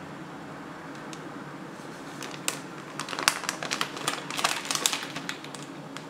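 Rapid, irregular clicking and clattering of hard plastic as a contraption of hollow plastic balls on a plastic ring frame is grasped and lifted. The clicks start about two seconds in and stop shortly before the end, over a steady low hum.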